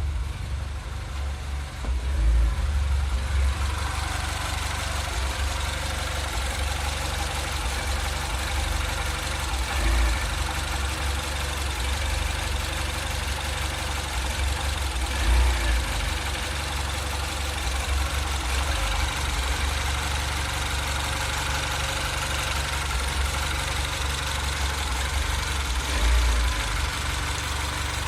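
2008 Mini Cooper S's N14 1.6-litre turbocharged four-cylinder engine idling roughly, its idle swelling up briefly a few times. This is the idle surge fault the owner is trying to diagnose.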